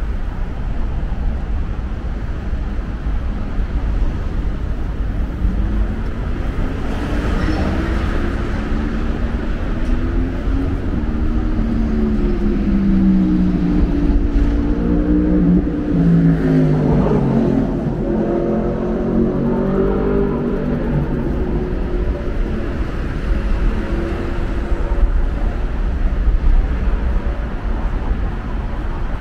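Road traffic under an elevated expressway: a steady low rumble of passing cars. From about five seconds in, one vehicle's engine note rises and falls in pitch for about fifteen seconds as it accelerates past, then fades.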